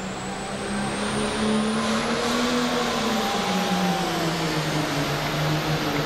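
International Harvester 1486 pulling tractor's turbocharged six-cylinder diesel running hard at full power as it launches and pulls the sled. Its pitch dips a little about three seconds in, over a high whine that climbs over the first two seconds and then holds.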